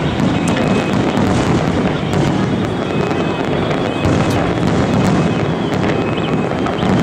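A fireworks display going off without a break: many overlapping shell bursts merge into a steady rumble, with sharp cracks and pops throughout.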